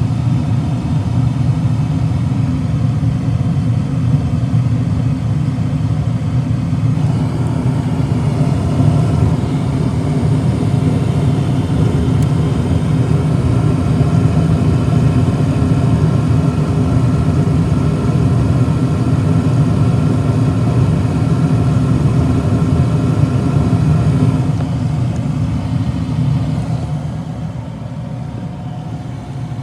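A motor running steadily with a low hum. Its tone fills out about seven seconds in, and it drops off somewhat near the end.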